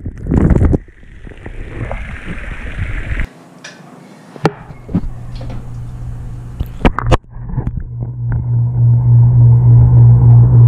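Waterfall water splashing and rushing over a GoPro Session 5 action camera, then a few sharp knocks and a steady low hum that builds over the last few seconds to become the loudest sound.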